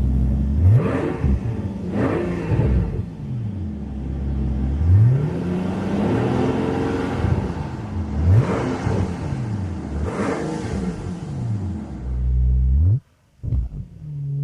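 Mercedes-Benz S65 AMG's twin-turbo V12 being revved while stationary, about six blips rising and falling. One longer blip is in the middle, and the revs are held down by a limiter at around 3,000 rpm. The sound cuts off suddenly near the end.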